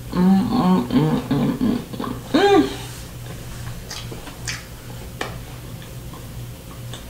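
A woman humming with her mouth closed while eating: several wavering hums in the first two seconds, then one louder hum that rises and falls a little later. A few faint mouth clicks from chewing follow.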